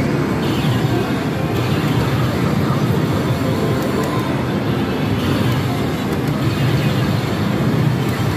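Steady, loud din of a pachislot parlor: many slot machines' electronic music and effects blended into one roar, with the played machine's own bonus-round effects and character voice lines over it.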